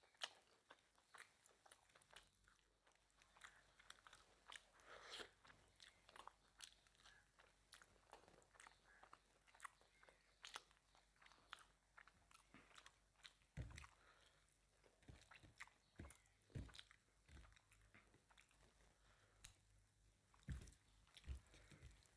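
Quiet, close-miked chewing and mouth sounds of someone eating mutton curry with rice: many small wet clicks and smacks, with a few soft low thumps in the second half.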